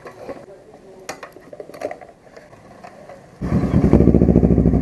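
A motorcycle engine comes in abruptly about three and a half seconds in and runs steadily at idle with an even, pulsing beat. Before that there are only a few light clicks and knocks.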